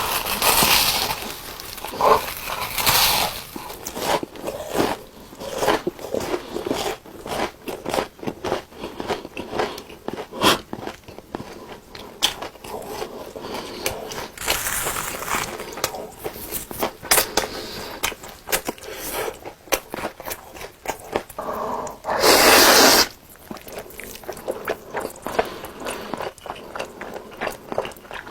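Close-miked eating: biting into and chewing crunchy food, with many irregular crisp crunches, and one louder burst of noise lasting under a second about three-quarters of the way through.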